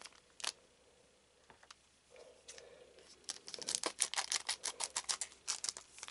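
Foil booster-pack wrapper crinkling as it is handled: a couple of light clicks, then about halfway through a rapid run of sharp crackles.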